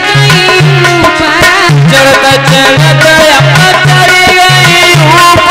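Loud Indian devotional folk music: a hand drum keeps a steady, repeating rhythm under a melody line.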